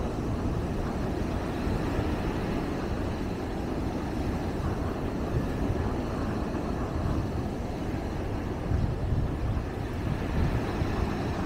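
Sea surf breaking and washing up a sandy beach, a steady rushing sound that swells slightly as a larger wave comes in.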